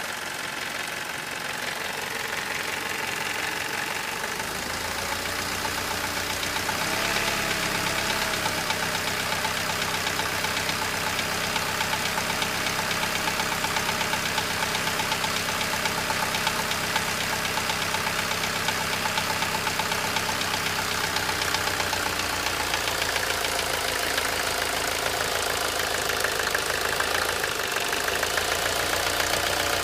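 Mercedes-Benz W124 200D diesel engine running steadily with a rapid, even knocking rattle, a clatter the owner says persists above all when the engine is cold and goes away once it is warm. The running shifts slightly about four seconds in and again past the twenty-second mark.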